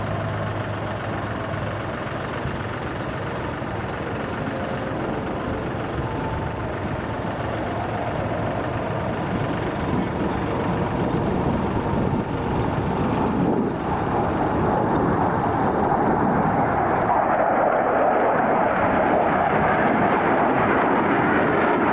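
Two twin-engine F-15 Eagle fighter jets flying over in formation: a steady jet-engine rumble that grows gradually louder as they approach.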